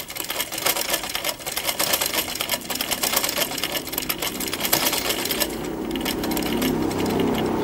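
Domestic sewing machine stitching through fabric: a rapid clatter of needle strokes for about five seconds, then a smoother, lower running sound. It is sewing while skipping stitches, a fault that is traced to the needle being fitted backwards.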